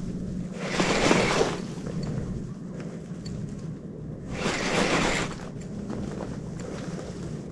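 Wind buffeting the microphone in two gusts, one about a second in and one about five seconds in, over a low steady drone.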